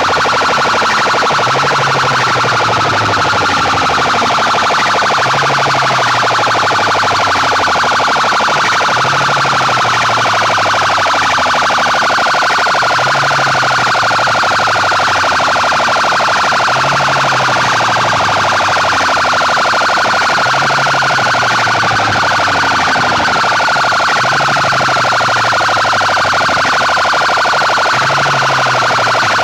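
Banks of PA horn loudspeakers blaring at full volume, a harsh, distorted electronic sound with a wavering high tone over a falling low figure that repeats about every four seconds.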